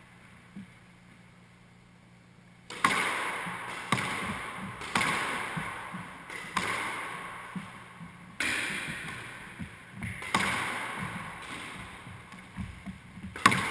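A squash rally: the ball struck by racquets and slapping off the court walls, a sharp hit every second or two, each ringing on in the echo of the enclosed court. The first hit comes about three seconds in, after a near-quiet pause.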